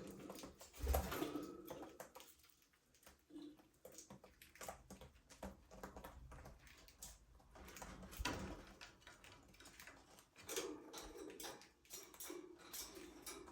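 Budgerigars moving about in their aviary: faint, scattered taps, scratches and rustles, with no clear chirping.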